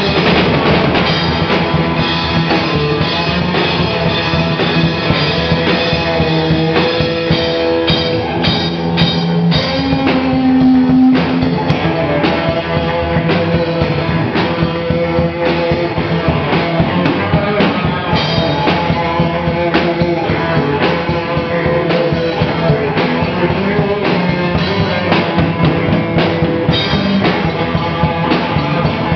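Improvised instrumental punk rock jam played live on drum kit, electric guitar and electric bass together, the drums keeping a steady beat under held guitar and bass notes.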